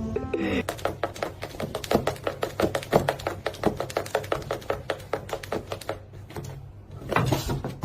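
A rapid, uneven run of sharp clicks, several a second, for about five seconds, then a short louder noise near the end.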